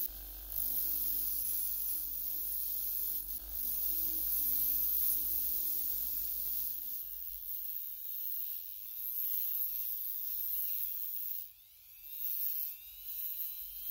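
Bench grinder motor running with its wire-brush wheel scrubbing rust off a small steel screw held in pliers. About halfway through this gives way to a small Dremel-type rotary tool sanding an aluminium part, with a rising whine near the end as it speeds up.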